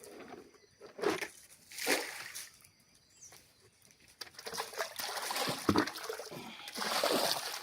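Water splashing and trickling as something is let go by hand into a river: short splashes about one and two seconds in, then a longer spell of sloshing in the second half.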